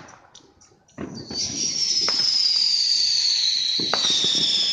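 Fireworks going off: a sudden bang about a second in, then a loud, high whistle that slowly falls in pitch, with a few sharp pops over it.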